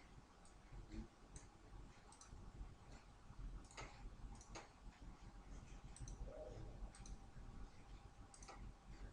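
Faint computer mouse clicks, irregular and scattered, over a low steady hum.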